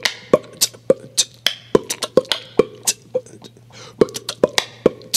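Percussive music: sharp drum-like hits in an uneven rhythm, about two or three a second.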